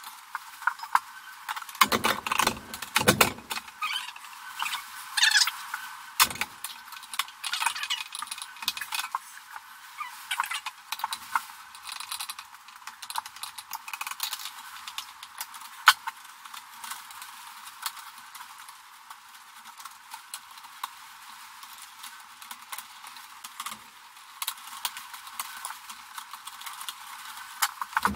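Hands working electrical cables into a steel breaker panel: irregular small clicks, scrapes and metallic rattles, busiest in the first few seconds, with a few duller knocks against the box.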